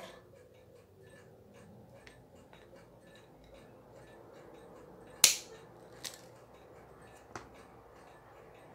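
Pliers working the strap pin out of a wristwatch's seized lugs: small metallic clicks and scrapes, then a sharp snap about five seconds in and two lighter clicks after as the old leather strap comes free.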